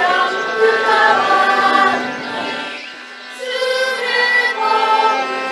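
Mixed choir singing in Japanese, accompanied by two bowed cellos. The sound dips near the middle, then a new phrase begins on long held notes.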